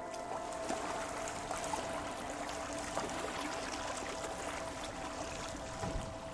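River water rushing and splashing along the hull of a moving boat, a steady wash with a few small sharper splashes, over a faint steady tone.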